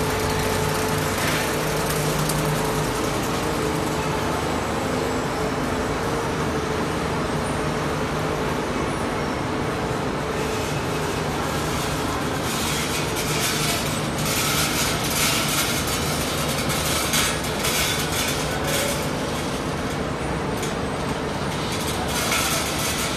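Snack pellet (fryum) production machinery running steadily: a continuous mechanical din over a low motor hum. From about halfway, an irregular higher hiss and rattle comes and goes.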